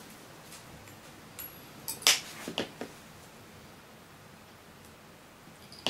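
Small metal fly-tying tools clicking: a cluster of sharp ticks about two seconds in and a single click near the end, over faint hiss.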